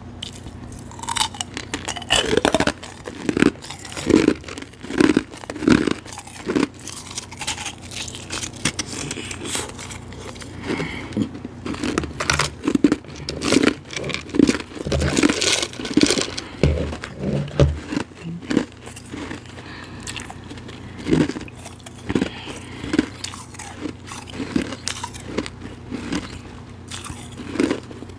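Close-miked biting and chewing of soft, powdery refrozen ice, with irregular soft crunches throughout. About halfway through, fingers dig more ice out of a plastic tub.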